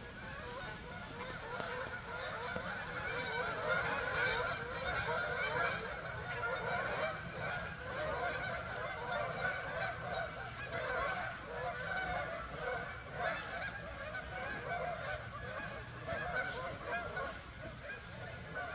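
A large flock of Canada geese on the water honking continuously, many calls overlapping into a noisy din.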